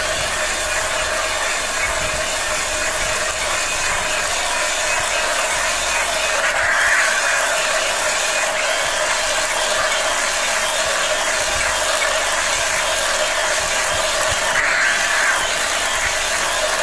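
A toy RC tank's small electric drive motors and plastic gearboxes whirring and rattling steadily as it drives on a tile floor. The sound swells briefly twice, about halfway through and near the end.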